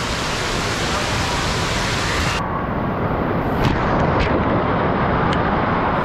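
Giant tipping bucket of a water-park play structure dumping its water, a loud rushing, crashing torrent pouring down over the camera. The full crash eases after about two and a half seconds into heavy pouring and splashing.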